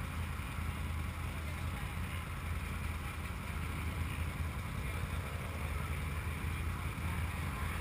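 Can-Am Maverick side-by-side's Rotax V-twin idling steadily: a low, even hum.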